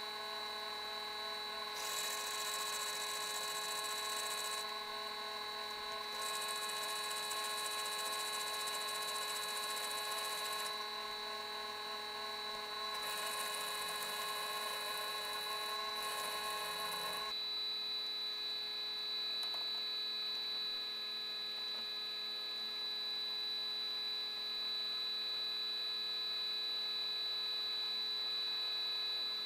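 Milling machine with a twist drill cutting into the threaded end of a grade 8 steel bolt: a hissing cutting noise comes and goes in several stretches as the bit is fed in and eased off, over the steady whine of the running spindle. From about two-thirds of the way through, the cutting noise stops and only the machine runs on.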